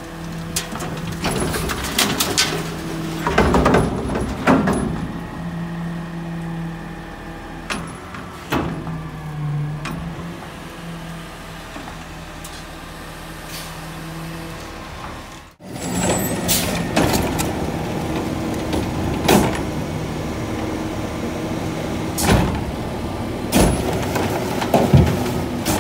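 Front-loading garbage truck running with a steady engine and hydraulic hum, with bangs and clanks as trash tips from its raised front carry can. After a cut about halfway through, the can's automated arm lifts and tips a plastic wheeled cart, with more knocks and clanks.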